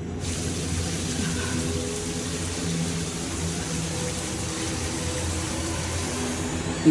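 Shower water pouring down steadily as an even hiss, with a low steady hum underneath.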